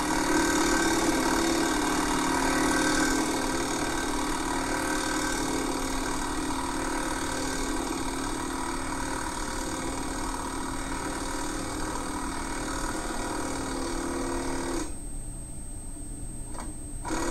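Impact driver running steadily for about 15 seconds, driving a self-tapping bolt through a steel shock-mount bracket into an RV trailer frame, then stopping suddenly once the bolt head seats. This last bolt is the tough one.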